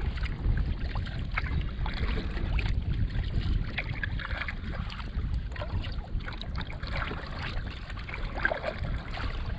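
Kayak paddle strokes on the open sea: the blades splash in and out of the water, over a steady low rumble of wind and water against the hull.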